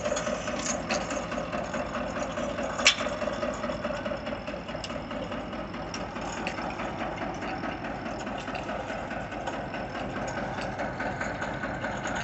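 Tractor engine running steadily as it drives a borewell pipe-lifting rig, with faint metal clicks here and there and one sharp metal clank about three seconds in.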